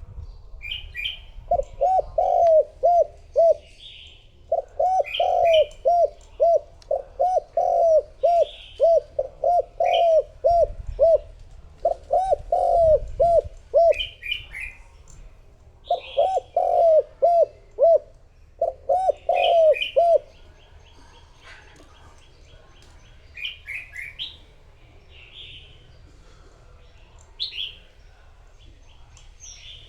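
Spotted dove cooing in quick runs of short, evenly spaced coos, several series one after another, which stop about two-thirds of the way in. Other small birds chirp briefly throughout.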